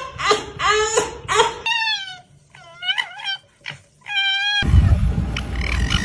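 A fox giving a series of short, high-pitched whining calls, some falling in pitch. In the last second and a half the calls give way to a rough, noisy sound with a low rumble.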